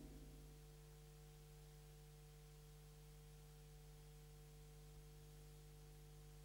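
Near silence with a faint steady hum, after the last of a tam-tam's ring dies away in the first half second.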